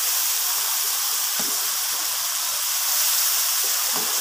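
Onion-tomato masala with spices frying in oil in a non-stick wok: a steady sizzle as it is roasted, with two faint knocks, one about a second and a half in and one near the end.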